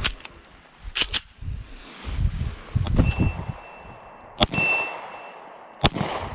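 Three shots from a semi-automatic pistol, about a second and a half apart, the first two each followed by a short metallic ring. Lighter clicks of the pistol being handled come about a second in.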